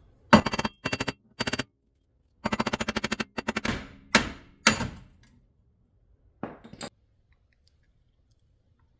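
Rapid bursts of metal-on-metal hammering on a wheel hub assembly to knock the stuck hub loose from the knuckle, with ringing blows. The strikes come in quick clusters for about five seconds, with one more short burst a second or so later.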